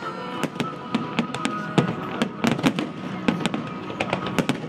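Aerial fireworks shells bursting in a rapid series of sharp bangs and crackles, over music with held notes.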